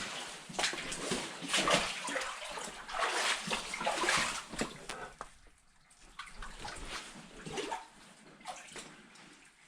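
Boots wading through shallow mine water and mud, with irregular splashes and sloshes, busy for about the first five seconds and then quieter and sparser.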